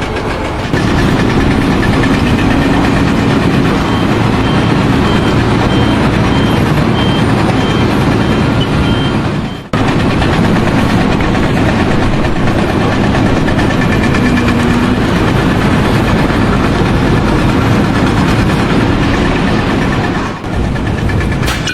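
Loud, steady running of a heavy vehicle's engine, with a reversing alarm beeping about twice a second from about four to nine seconds in. The noise breaks off for a moment about ten seconds in, then carries on.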